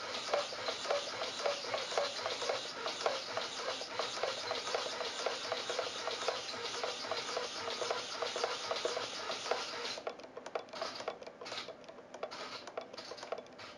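Two RC servos buzzing and whirring in rapid ticking strokes as they drive the plane's control surfaces on a receiver fed about 3.1 volts. About ten seconds in they fall mostly quiet with only scattered ticks: the receiver is starting to lose signal at that voltage.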